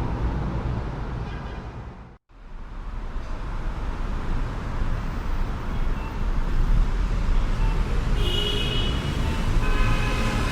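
City street traffic ambience: a steady low rumble of passing cars and buses. About two seconds in it drops out briefly where one recording cuts to the next, then comes back. Short high-pitched tones stand out about eight seconds in and again near the end.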